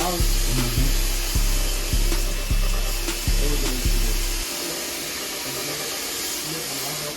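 Hip-hop beat with deep bass hits just under twice a second; the bass drops out a little past halfway, leaving a steady hiss.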